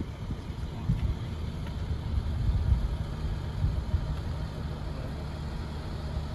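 Low rumble of a car driving slowly, with engine and road noise heard from inside the car and uneven low thumps.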